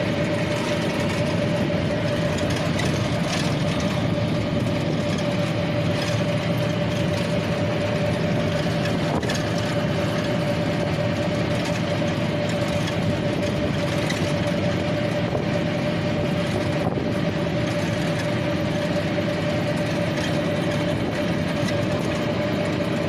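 A vehicle running steadily on a journey, an even rumbling noise with a constant hum that does not change.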